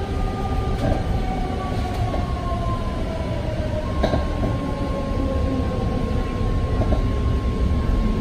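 Interior of a BART Fleet of the Future railcar slowing into a station: the electric traction drive whines down in pitch over a steady low rumble of wheels on rail. About halfway through, the falling whine gives way to a single steady tone, with a few light clicks.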